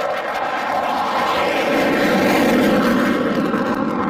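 F-15 Eagle fighter jet taking off on afterburner: a loud, steady jet roar with a whine in it, swelling a little in the middle and easing off near the end.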